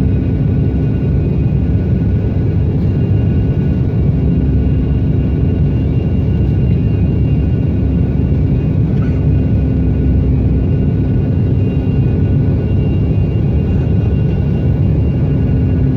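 Steady cabin noise aboard a Sukhoi Superjet 100 on approach: a dense rumble of airflow and its SaM146 turbofan engines, with a steady low hum and fainter high whining tones.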